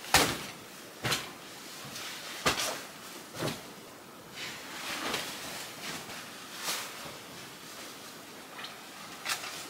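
A string of irregular knocks and rustles, roughly one every second, from things being handled and set down; the first, right at the start, is the loudest.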